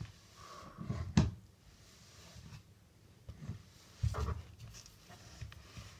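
Light handling noises on a tabletop: a few soft knocks as an aerosol shaving-foam can and other slime supplies are picked up and set down, with a sharp click about a second in and a heavier thud about four seconds in.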